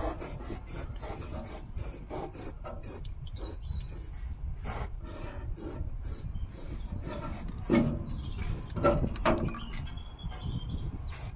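Aerosol spray-paint can hissing in many short, irregular bursts as the bare metal edge of a freshly cut hole is painted, with two louder knocks about two-thirds of the way through.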